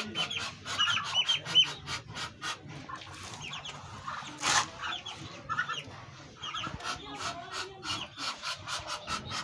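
Chickens clucking, with a run of short, repeated high calls and a brief rustling burst about four and a half seconds in.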